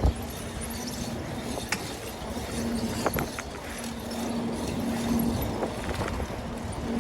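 Strong wind buffeting a GoPro microphone while riding a bicycle, with a few sharp clicks and knocks from the bike over the road, two of them close together about three seconds in.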